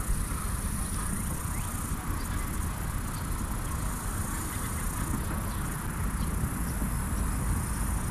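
Wind rumbling on the microphone outdoors, with a steady high-pitched hiss that fades about two seconds in.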